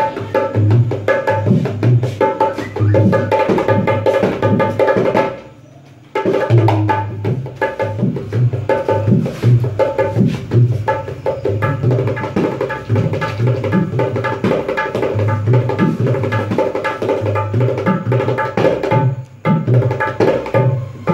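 Dholak, a two-headed barrel hand drum, played by hand in a steady rhythm: deep bass strokes mixed with ringing higher strokes. The playing stops for about a second around five seconds in and breaks off briefly again near the end before going on.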